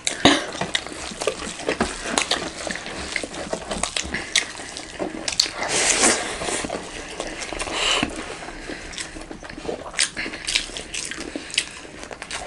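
Close-miked eating sounds: wet chewing and smacking of mouths, with fingers squishing rice and daal on metal plates, in many irregular small clicks and squelches.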